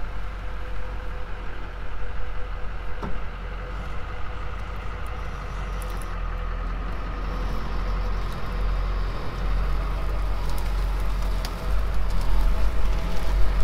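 Engine of a heavy off-road truck running steadily in its lowest gear while it strains to tow a derelict car by a strap, louder near the end. The towed car's wheels are not turning.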